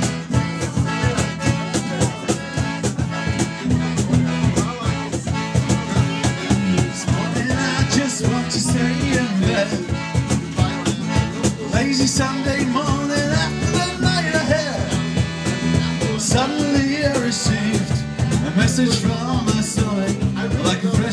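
Folk-rock band playing live with electric bass, acoustic guitar and accordion over a steady beat, a man's singing coming in about a third of the way through.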